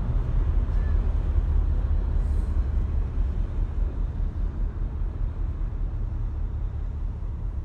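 Low, steady rumble of a ship's twin MaK marine diesel engines, with wind buffeting the phone microphone, slowly fading out.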